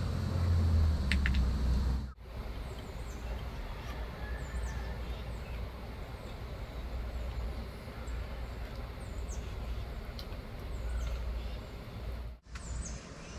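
Outdoor ambience with a steady low rumble and a small bird giving short, high, repeated chip calls about once a second. The first couple of seconds, before a cut, hold a low hum and a few faint clicks.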